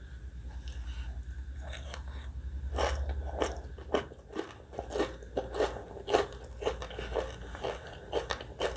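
Chewing a spicy catfish salad with sour green mango: quiet mouth sounds at first, then crisp crunches about two to three times a second from about three seconds in.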